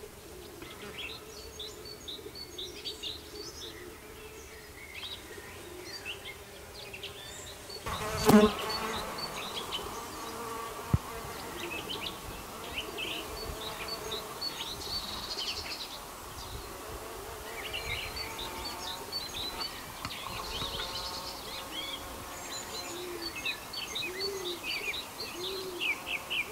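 Horned mason bees buzzing with a steady hum, over background birdsong of many short high chirps. A single loud knock comes about eight seconds in, and a bird gives a few low hoots near the end.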